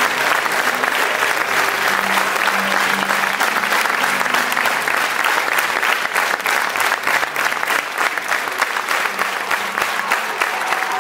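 Audience applauding: dense, steady clapping from a full house.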